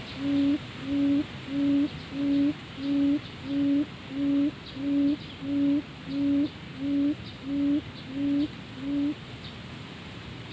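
Field quail (burung leto) giving its low hooting lure call as the decoy for a trap cage: a steady series of short, slightly rising hoots, about two a second, that stops about nine seconds in.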